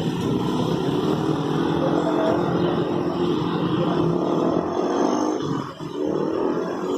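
Engines running steadily and loudly, with a short dip in level about six seconds in.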